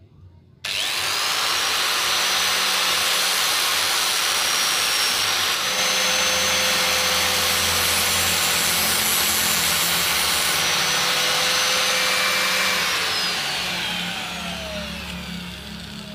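Angle grinder fitted with a rubber sanding pad switched on about half a second in, whining quickly up to speed and running steadily. Near the end it is switched off and winds down with a falling whine.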